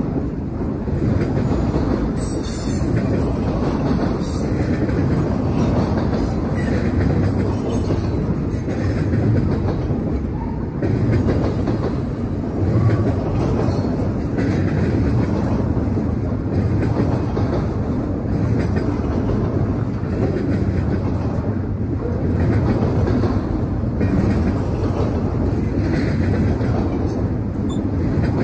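A freight train's cars rolling past on the rails, a steady loud rumble with light clatter from the wheels.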